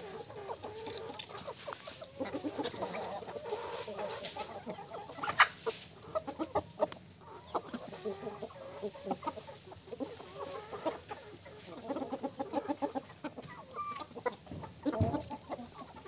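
A flock of chickens clucking as they forage, with many short clucks overlapping throughout and a dense run of them about twelve seconds in. A sharp knock about five seconds in is the loudest sound.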